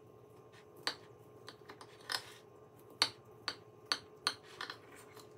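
Large kitchen knife cutting down through a cake's crust of chopped pistachios: a string of sharp crunches and clicks, about seven, the loudest about three seconds in.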